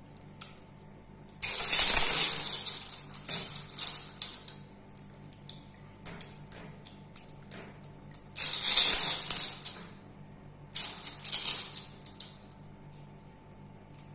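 Glass marbles clattering against each other and the glass bowl in three bursts as the slime is pressed onto them. The first burst is the longest and trails off; the other two are shorter and come close together later on.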